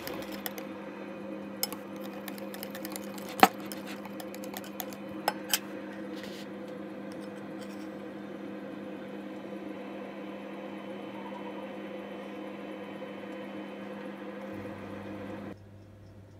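A wire whisk clinking against a glass bowl a few times, the sharpest clink about three and a half seconds in, over a steady electrical hum that cuts off suddenly near the end.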